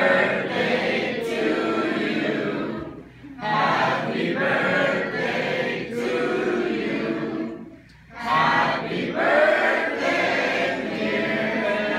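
A group of voices singing a birthday song together, with two short breaks between phrases.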